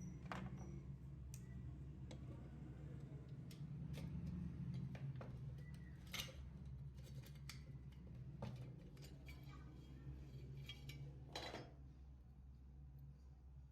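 Scattered metallic clicks and short scrapes from a rusty cutter being handled and worked by hand, over a steady low hum.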